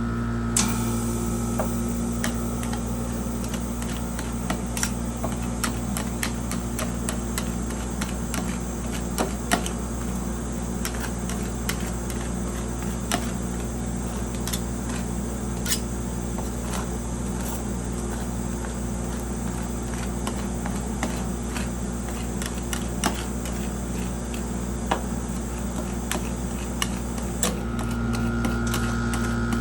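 Metal spatulas tapping and scraping on a cold plate while ice cream is worked into rolls, as scattered sharp clicks over a steady machine hum.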